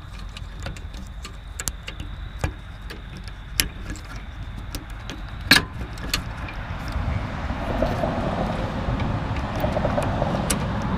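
Hands working the furnace igniter's wiring: scattered small clicks and one sharper click about five and a half seconds in as push-on connectors go onto the terminals, with handling rustle growing louder in the second half over a steady low rumble.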